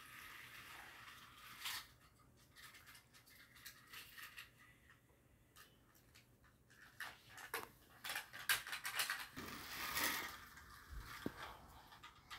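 Scattered light clicks, rattles and rustling of a flexible plastic toy car track and small toy cars being handled and pushed along it, busier in the second half.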